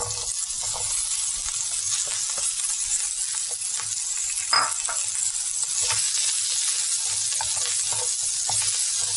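Sliced vegetables sizzling as they hit hot oil in a non-stick grill pan, a steady hiss with scattered light clinks and one sharper knock about halfway through as they are stirred with a spatula.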